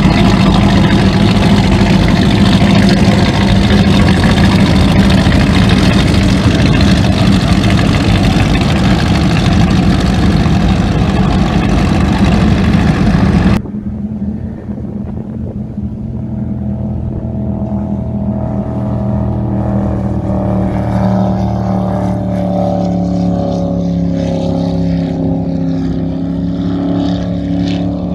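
Offshore powerboat engines. For about the first half a boat's engine runs loud and steady with a deep low hum, then the sound cuts abruptly to quieter, more distant powerboats running at speed, their engine notes drifting in pitch as they pass.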